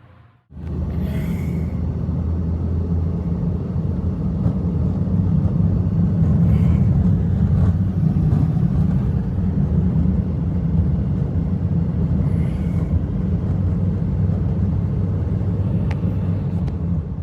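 Strong blizzard wind buffeting the microphone, a loud steady low rumble that starts abruptly just after the beginning and cuts off suddenly at the end.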